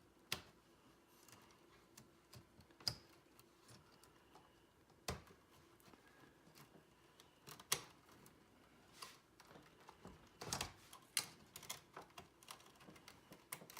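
Faint, irregular plastic clicks and taps from wire connectors being unplugged and wires being pulled out of plastic clips inside a pachinko machine.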